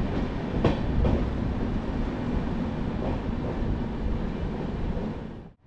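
Steady rumble of the Darjeeling Mail passenger train, with a few faint knocks in the first second or so. It cuts off abruptly just before the end.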